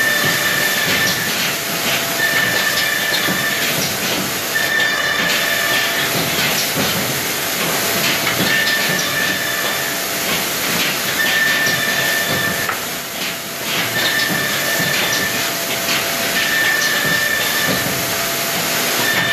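Woodworking machine in a factory running with a loud, steady hiss. A high whine lasting about a second recurs roughly every two seconds as pieces of board are fed through it.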